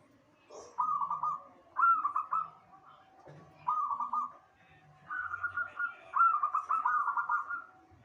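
Zebra dove (perkutut) cooing: five phrases of quick rippling coo notes, the last one the longest.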